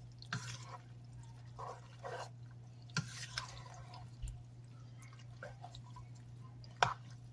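Cooked elbow macaroni in evaporated milk and egg being gently stirred, giving soft wet squelching and dripping sounds, with a couple of sharp clicks about three seconds in and near the end. A steady low hum runs underneath.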